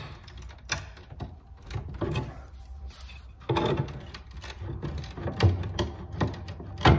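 Screwdriver prying at a loose wooden piece on an old washstand's cabinet joint: irregular knocks, scrapes and creaks of metal against wood, the loudest knock near the end.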